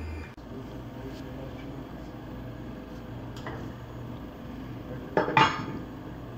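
Metal tools clinking against the spindle head of a CNC router during a bit change: a few light clicks, then one loud ringing metallic clank about five seconds in. A steady machine whine cuts off just after the start.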